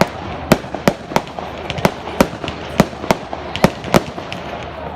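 Fireworks going off in a rapid, uneven string of sharp bangs, about a dozen of them, two to three a second, over a steady background rumble.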